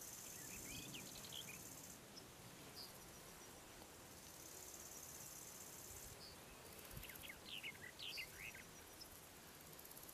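Faint field ambience: insects buzzing high and thin in spells of about one and a half to two seconds, with scattered short bird chirps just after the start and again in the second half.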